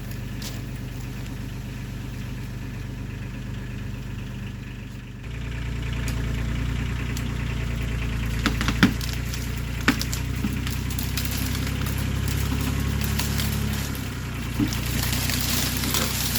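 Tractor engine running steadily, then working harder about five seconds in as the loader pushes, with a few sharp cracks a few seconds later.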